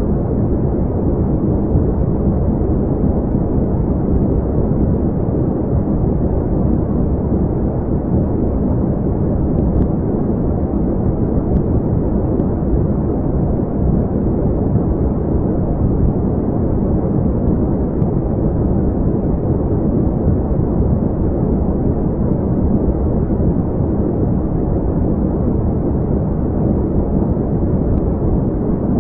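Steady, unchanging deep noise, a low rumble with a muffled hiss above it and no tones or beats: an ambient space soundscape presented as the sound of the exoplanet CoRoT-3b.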